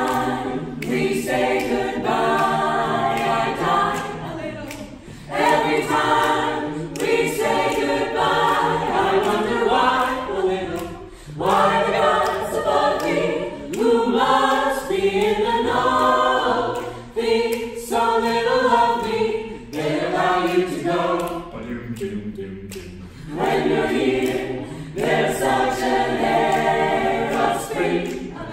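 Mixed-voice vocal ensemble singing a cappella, several voices in harmony, in phrases with short breaks between them.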